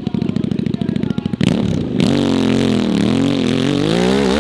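Off-road motorcycle engine chugging in rapid even pulses at low revs, then from about a second and a half in revving up, its pitch rising and falling as the throttle is worked.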